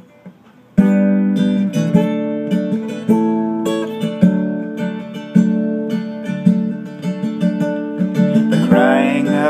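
Acoustic guitar strummed, sustained chords starting about a second in and re-struck in a steady rhythm as a song intro. A man's singing voice comes in near the end.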